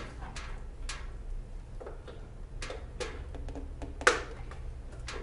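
Scattered clicks and knocks from the plastic case of an Epson TM-U220B printer being handled, with a sharper knock about four seconds in.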